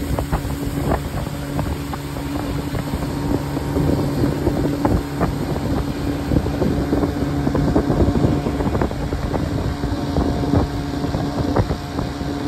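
Motorboat engine running steadily with a low hum, wind buffeting the microphone, and scattered short knocks and rattles on the aluminum boat.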